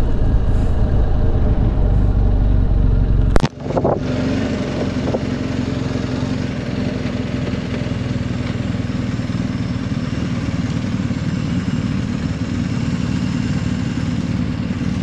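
BMW R1250 GS Adventure's boxer-twin engine heard from the saddle. For the first three and a half seconds the bike is under way with a heavy low wind rumble. That cuts off suddenly, and the engine then runs steadily at low speed as the bike creeps along in slow traffic.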